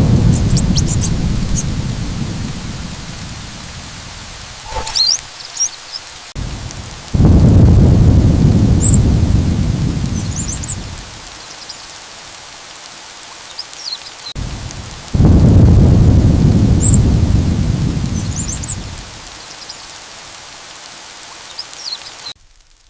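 Thunderstorm: three long rolls of thunder, each starting suddenly and dying away over about four seconds, over steady rain, with a few short high bird chirps between the rolls.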